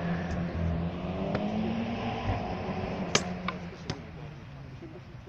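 A motor vehicle's engine drones past, rising and then falling in pitch. Over it come a few sharp clacks of swords striking round shields in armoured sparring, the loudest about three seconds in.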